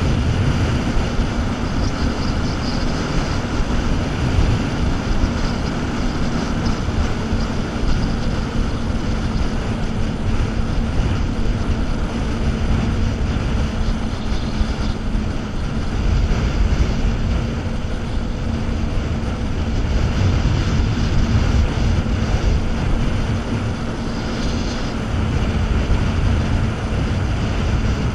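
Jet ski running steadily at cruising speed: a constant engine hum over the rushing of wind and the churning water of its wake.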